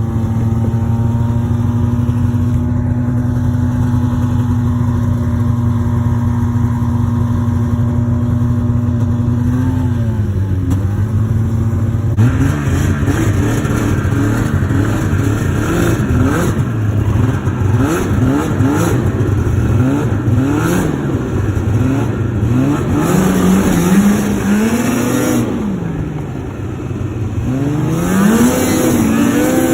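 Two-stroke snowmobile engine running at a steady speed for about ten seconds, then being ridden with the throttle opened and closed over and over, its pitch repeatedly rising and falling.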